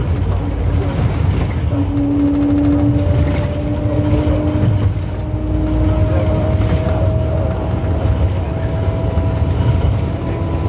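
Cabin noise inside a minibus cruising on an expressway: a steady low engine and road rumble, with a thin whine that slowly rises in pitch.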